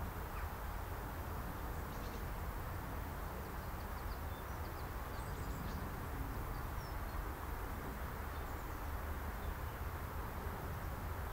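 Open-air countryside ambience: a steady low rumble with a few faint, short bird chirps scattered through the middle.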